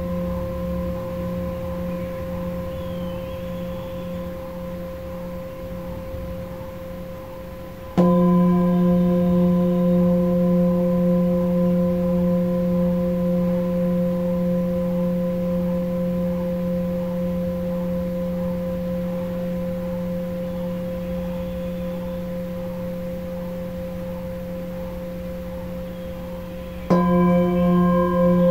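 Handheld Himalayan singing bowl, tuned to F, struck with a felt mallet about eight seconds in and again near the end. Each strike rings out as a low hum with higher overtones that slowly fades.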